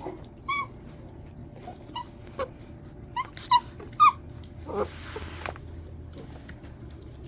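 Puppies giving a string of short, high-pitched yelps and whimpers while play-fighting, the loudest two about three and a half and four seconds in. A brief scuffling rustle comes about five seconds in.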